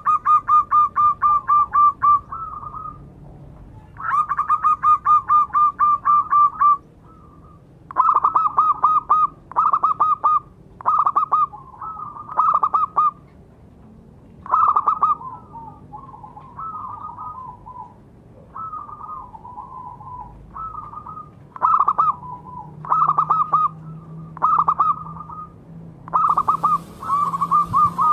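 Zebra dove (perkutut) cooing: bouts of rapid, evenly spaced staccato notes, repeated several times, with shorter, softer broken phrases between the longer runs.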